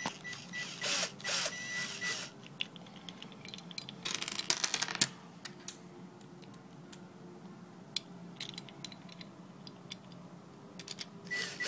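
Metal caster bracket and wheel hardware rattling, scraping and clicking as it is fitted by hand onto a cubicle panel's foot, in bursts about a second in and again around four to five seconds in, then a few scattered clicks.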